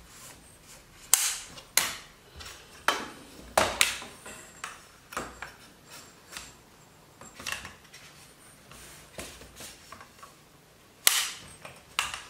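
Shooting-stick leg sections being handled and slotted together: irregular sharp clicks and knocks as the sections slide into their sleeves and clip into place, the loudest about a second in and near the end.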